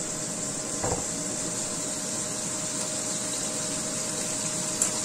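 Beef-wrapped enoki mushroom rolls sizzling in oil in a nonstick frying pan, a steady hiss with a faint steady hum beneath it. A single light knock comes about a second in.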